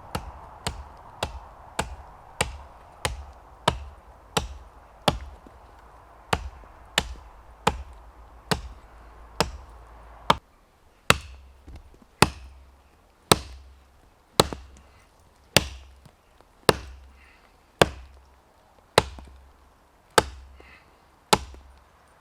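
Hultafors Hunter's Axe chopping into the trunk of a small standing tree, a steady run of sharp blows: about one and a half a second at first, then louder and about one a second from around ten seconds in.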